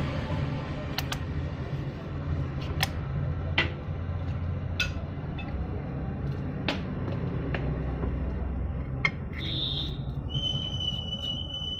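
Scattered sharp clicks and light knocks of hands handling wires and a clamp meter on an electric motor, over a steady low hum. Near the end a steady high whistling tone starts and holds.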